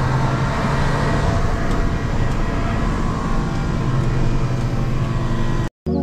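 Diesel engine of a concrete mixer truck running, heard from inside the cab as a steady low hum with road and mechanical noise. It cuts off abruptly near the end.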